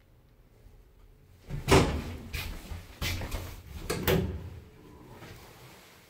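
Zremb passenger lift's doors working at a landing: a string of knocks, thuds and rattles starting about a second and a half in, the loudest at the start, dying away after about three seconds.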